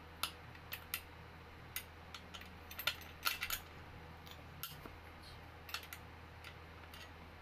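Irregular metallic clicks and taps as metal parts of an office chair's seat mechanism are handled during assembly, with a quick cluster of clinks about three seconds in.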